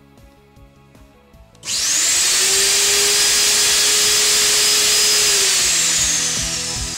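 A pellet boiler's vacuum suction turbine being test-run after new carbon brushes were fitted. About two seconds in it starts abruptly with a loud rush of air and a motor whine that rises in pitch as it spins up, then runs steadily. Near the end the whine falls and the sound dies away as the turbine winds down.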